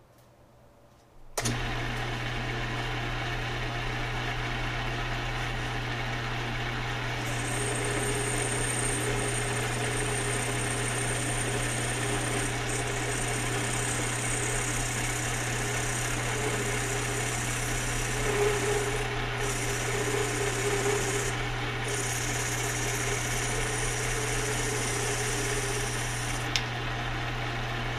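Small metal lathe starting about a second in and running with a steady motor hum while a parting tool cuts through alcohol-lubricated aluminium round stock. A high, thin cutting whine comes in after several seconds, breaks off briefly twice, and stops shortly before the end.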